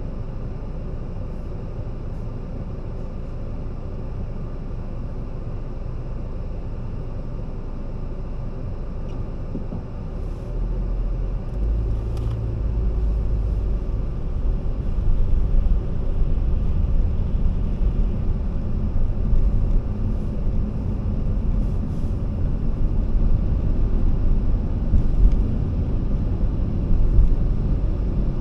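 A car driving, with a steady low road and engine rumble that grows louder about ten seconds in.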